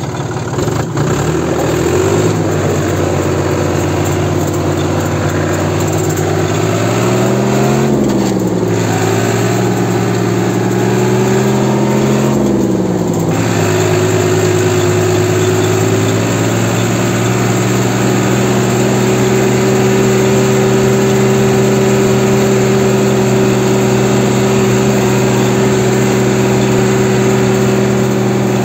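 New Holland 54C tractor's diesel engine running as the tractor drives along; its speed rises and falls twice in the first half, then holds steady.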